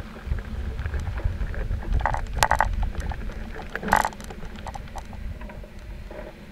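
Low rumble of wind and rolling noise on a moving robot's microphone outdoors, with scattered clicks and knocks and two brief louder bursts, about two and a half and four seconds in.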